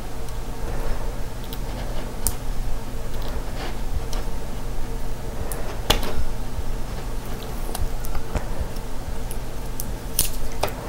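Fingers peeling Scotch tape off a small plastic enclosure on a model locomotive chassis: faint rustling with a few sharp little clicks, the loudest about six seconds in and two more near the end, over a steady low hum.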